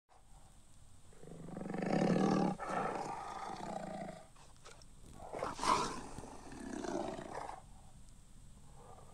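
Tiger roar sound effect of a Google 3D tiger model. It plays as two roars: a long one that swells from about a second in and is loudest around two seconds, then a second, shorter one in the middle.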